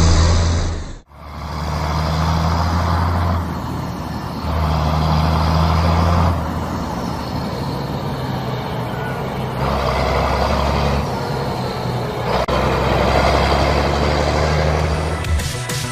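Radio-controlled 1:10 scale model tractor driving and pulling a disc harrow through soil: a low motor hum that comes and goes in several stretches over a steady noisy haze. The sound drops out briefly about a second in.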